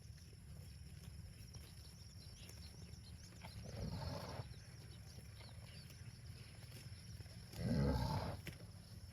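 Cows mooing: two calls of about a second each, the second one louder.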